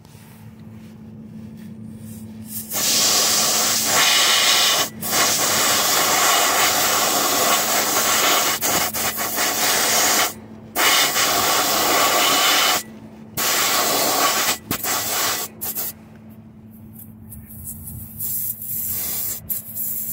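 Compressed air hissing at a truck tyre's valve stem, in several long bursts with brief pauses between them, as the low tyre is aired up and its pressure checked.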